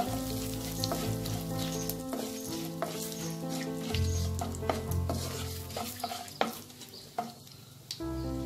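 Wooden spatula stirring and clicking against a non-stick kadai while whole fennel seeds, dry red chillies and bay leaves sizzle in hot mustard oil, a tempering being fried. The sizzle and stirring go fainter for a couple of seconds near the end.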